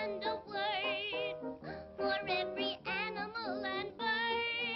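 1930s cartoon soundtrack music: a band playing under high, wavering vocal-like notes, with one long held, wavering note about four seconds in.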